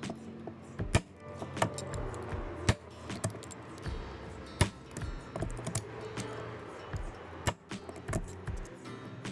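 Hand lever punch shearing holes through thin aluminium sheet, giving a series of sharp metallic clicks every second or two, four of them much louder than the rest. Background music plays under them.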